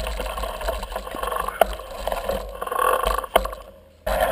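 Scuffing, rustling and occasional sharp knocks of mountain bikes being pushed on foot up a dirt forest trail, over a steady low rumble. A few seconds in, the sound sinks to faint, then cuts back in abruptly.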